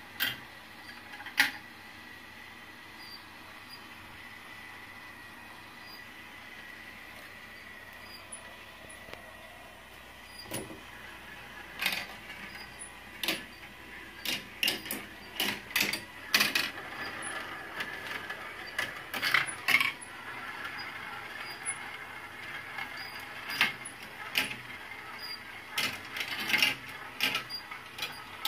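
Marbles rolling along plastic marble-run rail track: a steady, quiet rolling sound at first, then from about twelve seconds in, frequent sharp clicks and clacks as marbles strike the track pieces and each other.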